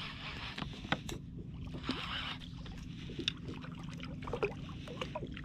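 Water lapping against a plastic fishing kayak's hull, with a few scattered light clicks and knocks from fishing gear being handled.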